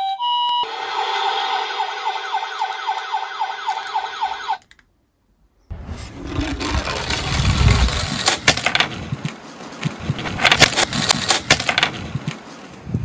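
An electronic two-tone hi-lo siren effect switches to a fast, repeating rising yelp siren for about four seconds and then cuts off. After a second of silence, a die-cast toy garbage truck rolls down a plywood slope, its small wheels rumbling with clicks and knocks.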